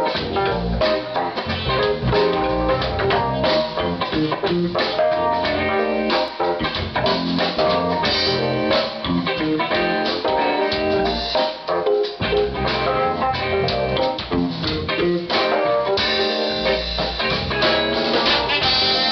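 A funk band playing live, led by guitar over a drum kit. About three-quarters of the way through the sound fills out with held notes.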